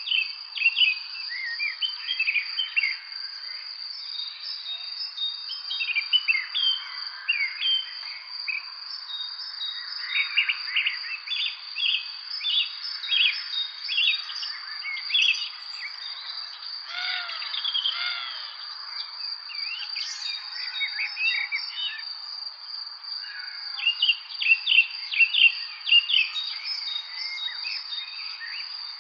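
Birds chirping: many short, quick chirps, thickest in a few busy stretches, over a steady high-pitched insect drone.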